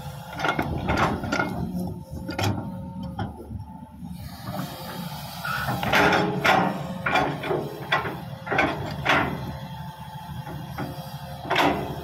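Heavy diesel machinery running with a steady low rumble, with repeated sharp metal clanks and squeaks as a Hitachi 200 excavator's bucket and boom pins work in the mud.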